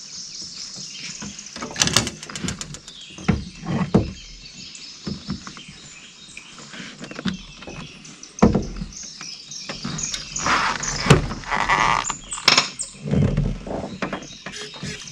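Scattered knocks, clicks and rattles of fishing gear being handled in a small flat-bottomed boat, with a quick run of clicks about two seconds in. Birds chirp steadily behind.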